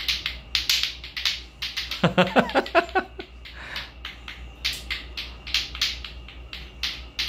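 Lato-lato clackers, two hard plastic balls on strings swung so they knock together, clicking several times a second in an uneven run as two sets are played at once.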